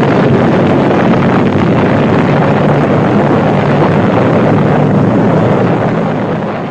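A loud, steady rushing noise with a low drone beneath it, fading out near the end.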